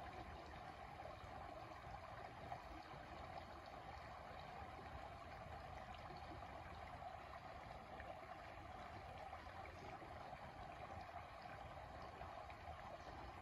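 Shallow creek water running over a low riffle of rocks and branches: a faint, steady flowing sound.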